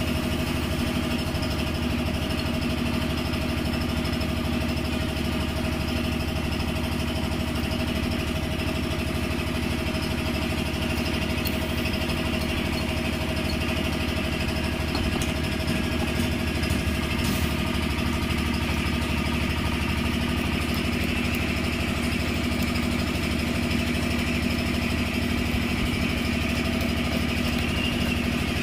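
Steady, unbroken drone of a running engine or motor, with a constant hum and a few faint clicks partway through.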